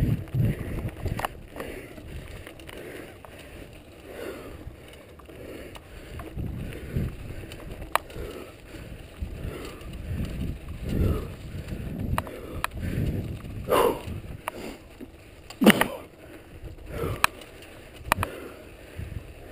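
Mountain bike riding over rocky ground and packed snow, heard from a camera mounted on the bike: an uneven low rumble of tyres and wind on the microphone, with frequent sharp clicks and rattles as the bike jolts over stones, the loudest knocks about two-thirds of the way through.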